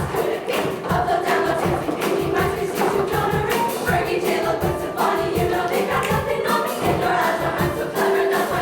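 Show choir singing in full chorus over an instrumental backing with a steady drum beat.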